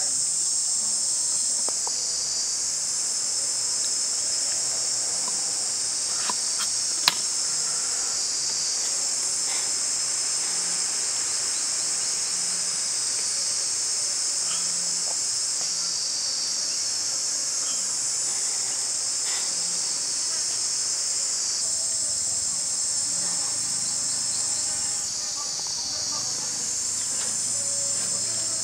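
Dense, high-pitched insect chorus buzzing steadily, swelling and easing every few seconds. A few light clicks sound over it, one sharper click about seven seconds in.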